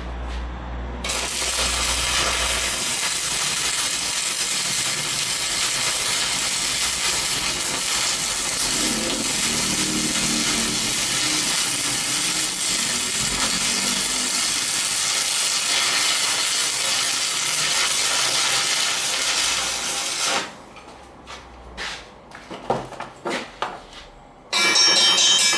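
A power tool runs steadily with a loud, hissy grinding noise for about twenty seconds, then cuts off suddenly. A few scattered knocks and clicks follow.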